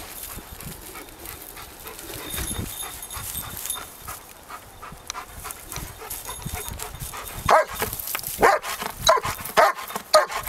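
Footfalls and rustling through grass, then about seven seconds in a German Shepherd search-and-rescue dog starts barking in a steady series, about two barks a second: its trained stay-and-bark alert signalling a find.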